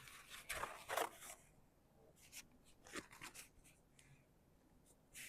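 Faint rustling and crinkling of a piece of old wallpaper being handled, in a few short scrapes that come and go.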